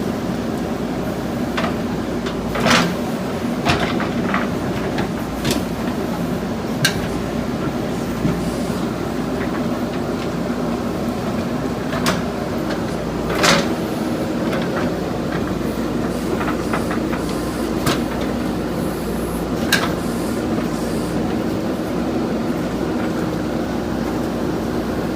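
Backhoe loader's diesel engine running steadily under work, with scattered sharp knocks and clanks from the digging gear. The loudest come about three seconds in and about halfway through.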